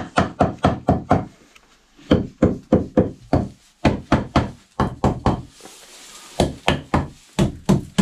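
A hammer striking wood repeatedly, in quick runs of about five blows a second broken by short pauses.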